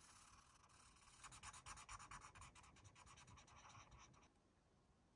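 Faint rapid scratching, about eight quick strokes a second, lasting about three seconds and stopping abruptly.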